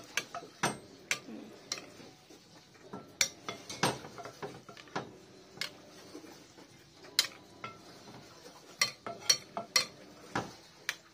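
Metal spoon stirring a thick cheese sauce with vegetables and chicken in a glass bowl, clinking irregularly against the glass, with some sharper knocks scattered through.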